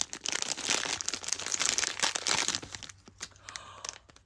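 Packaging crinkling as a blind box is unwrapped by hand: dense crackling for about two and a half seconds, then thinning out and going quieter.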